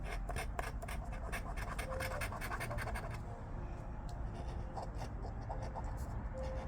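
Coin scratching the coating off an instant lottery scratch card: quick rasping strokes, dense and rapid for about three seconds, then fewer and more spaced out.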